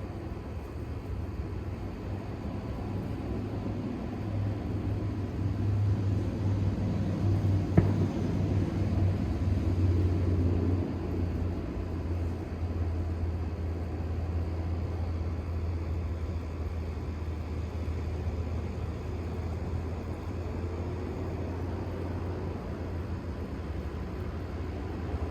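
A low, steady rumble that swells between about four and eleven seconds in, then settles, with one sharp click about eight seconds in.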